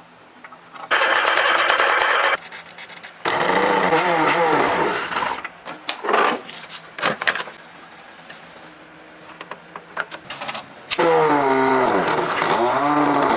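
Workshop machinery running in three loud bursts of a few seconds each, the pitch sweeping up and down in the second and third, with light clicks and clatter in between.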